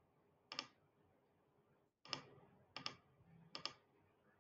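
Faint computer mouse clicks, about five of them at uneven intervals, some as quick double clicks, over near silence.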